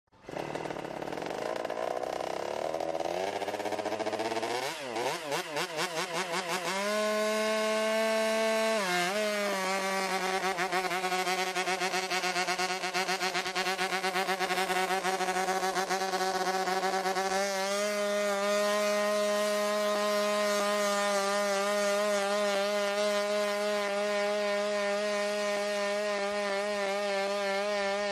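Boston Dynamics AlphaDog four-legged robot's onboard engine starting up, its whine rising in pitch over the first several seconds. It then runs at a steady high pitch as the robot walks, dipping briefly about nine seconds in and stepping up slightly a little past halfway.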